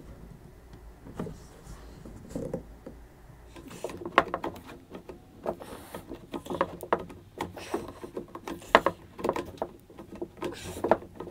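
Harbor Freight ratcheting bar clamps being tightened by repeated squeezes of their trigger handles: irregular sharp clicks and creaks of the clamp mechanism, sparse at first and coming thick and fast from about four seconds in, as the clamps load a 3D-printed connector.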